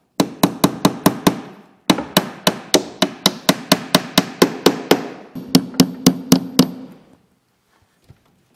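Claw hammer nailing a half-inch plywood nesting-box divider: quick blows about four a second, in three runs with short pauses between. A ring sounds under the last few blows, and the hammering stops about seven seconds in.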